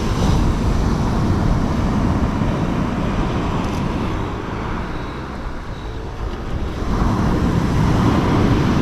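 Surf and wind at the shoreline: a steady rushing noise with wind buffeting the microphone, easing in the middle and swelling again about seven seconds in.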